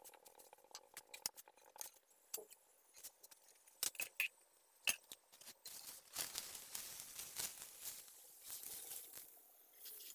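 Paratha frying in oil on an iron tawa: faint scattered crackling and popping, turning into a denser, steadier sizzle about halfway through as a spatula presses the paratha.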